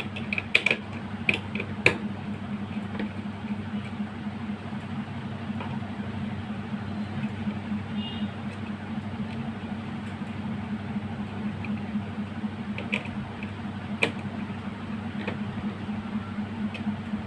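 A steady low hum with a few sharp clicks and taps from parts and tools being handled on a workbench: several in the first two seconds and a couple near the end.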